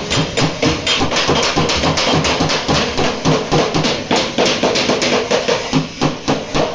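A hammer beating out a dented steel car door panel in quick, even blows, about four a second, with a short pause near the end.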